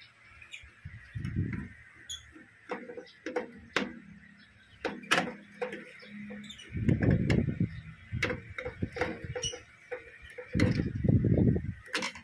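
Clicks, knocks and short bursts of rattling as microwave parts and tools are handled on a workbench, with birds chirping faintly in the background.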